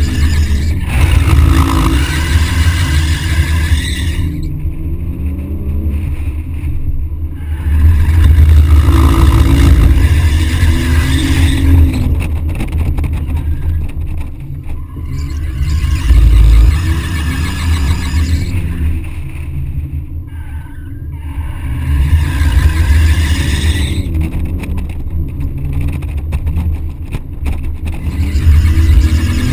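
BMW 130i's 3.0-litre straight-six revving hard and falling back in repeated surges as the car is drifted through the bends, with tyre squeal through the slides. Heard from a camera mounted on the outside of the car.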